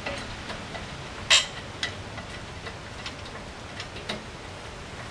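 Irregular light clicks and ticks from the loaded chain and jack as a car is lifted, with one sharp, louder click just over a second in.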